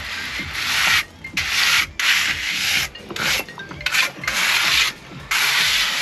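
Steel finishing trowel scraping across freshly laid resin-bound stone aggregate as it is smoothed down on a step tread, in a series of about seven gritty strokes, each under a second, with short pauses between.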